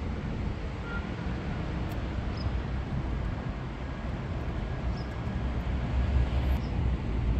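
Steady low outdoor rumble with no voice in it, growing somewhat louder near the end.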